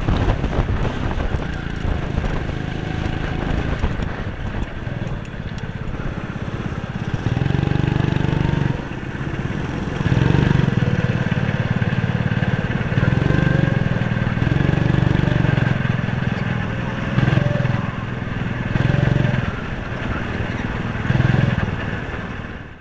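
Go-kart engine running at speed, heard from onboard the kart, its pitch rising and falling as it speeds up and eases off through the corners. It cuts off suddenly at the end.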